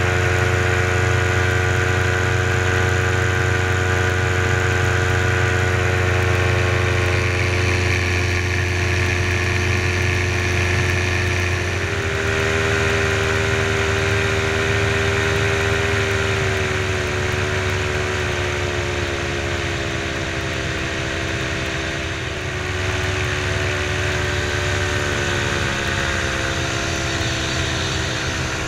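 Paramotor engine and propeller running steadily in flight, a loud, even drone. About twelve seconds in, the engine note drops a little and stays lower, as if the throttle is eased.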